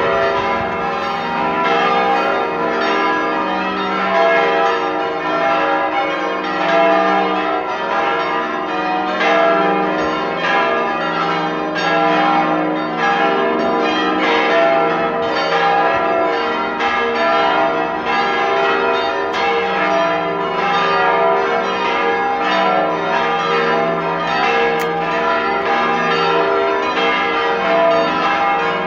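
Full peal of church bells: all the bells in the tower ringing together, their strikes overlapping continuously over a steady hum of sustained tones.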